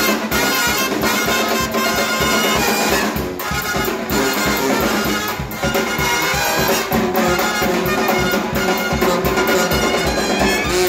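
Brass band playing: trumpets, trombone and two sousaphones over bass drum and snare drum, in a steady beat.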